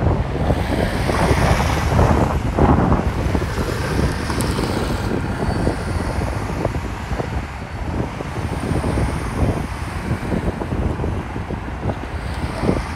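Wind buffeting the microphone in gusts, with road traffic passing.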